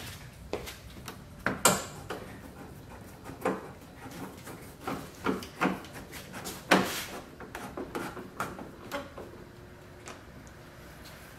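Irregular clicks and knocks of a screwdriver and plastic fasteners being worked along the top of a car's radiator support, refitting the upper bumper screws and clips. Two louder knocks come about 2 and 7 seconds in.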